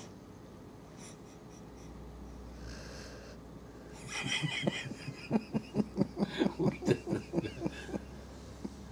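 Golden retriever snoring in deep sleep: quiet breathing at first, then about halfway through a quick run of short, loud snoring puffs, about four a second, lasting some four seconds.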